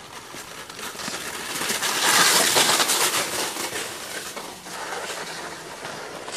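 A natural track luge sled's steel runners scraping over the ice as it passes: a rasping hiss that swells to its loudest about two seconds in and fades away over the next two seconds.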